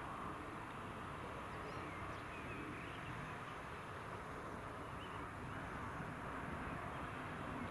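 New Holland tractor with a Lemken plough heard from a distance as a steady, even noise, with a few faint bird calls over it in the first half.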